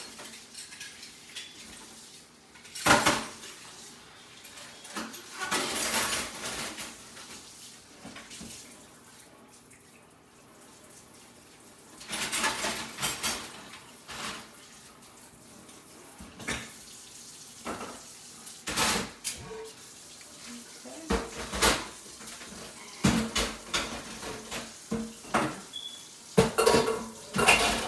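Dishes, pots and cutlery clattering and knocking together in a long run of sharp clatters as they are moved over to drain: a lot of noise.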